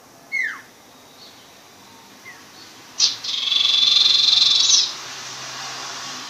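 A young sirpu songbird practising its song: a short downward-sliding whistle, a few faint chirps, then about three seconds in a sharp note and a loud buzzy trill lasting about a second and a half.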